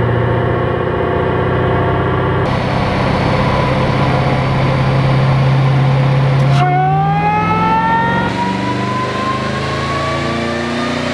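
Camaro ZL1's supercharged 6.2-litre LSA V8 running on a chassis dynamometer. It holds a steady speed at first; about six and a half seconds in, the sound changes abruptly and the revs climb smoothly and steadily under load in a dyno pull.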